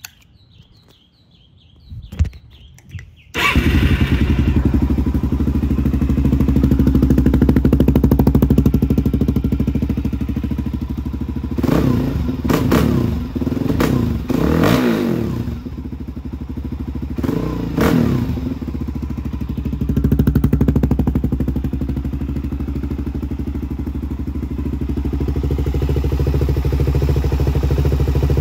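Suzuki DR-Z400SM's single-cylinder four-stroke engine, breathing through a KIPA FCR39 carburetor and MRD exhaust, starts about three seconds in and settles into an idle. Around the middle it is given a quick series of sharp throttle blips, then one more a few seconds later, each rev climbing fast and dropping straight back to idle.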